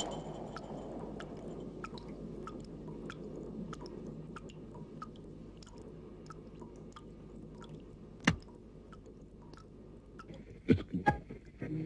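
Slow, even ticking, about three ticks every two seconds, over a low rumble that fades away. A single sharp knock comes about eight seconds in, and a few dull thumps near the end.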